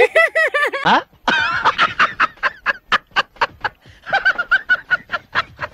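A woman laughing hard in quick repeated pulses, in two bouts with a short pause between them.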